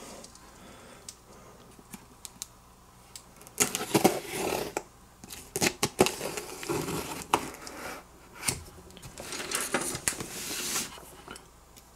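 Packaging being opened and handled by hand: scattered light clicks and taps, with several short bursts of rustling.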